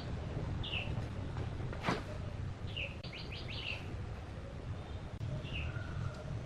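Small bird chirping: short falling chirps and a quick run of four notes about three seconds in, over a low steady rumble, with one sharp click about two seconds in.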